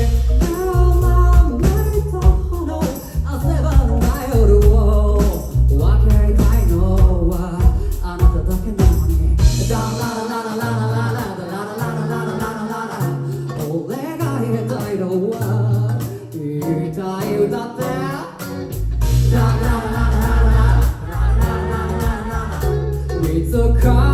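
Live band music with singing, loud throughout. About ten seconds in, the heavy bass drops out for a lighter passage with the vocal still going, and the full band comes back in near the end.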